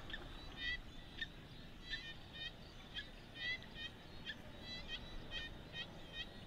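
Faint, short, high chirping calls from a small animal, repeated irregularly about two or three times a second.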